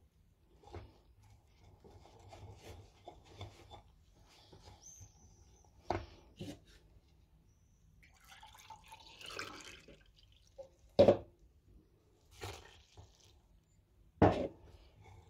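A wire whisk clattering lightly in a plastic bowl of batter, then liquid poured from a plastic measuring jug into a glass for about a second and a half. Two sharp knocks land in the second half.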